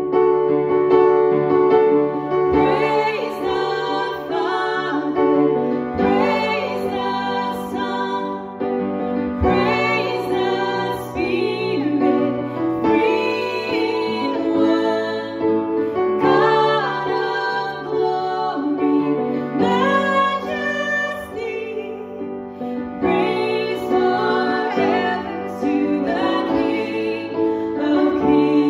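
Two women singing a slow contemporary worship song together, in phrases of a few seconds, with piano accompaniment.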